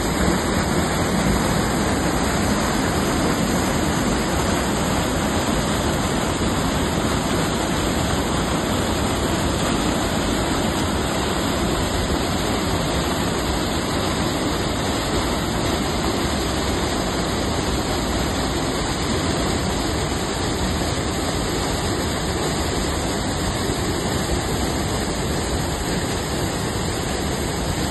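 Fast river water rushing over boulders and small cascades: a steady, even rush of whitewater.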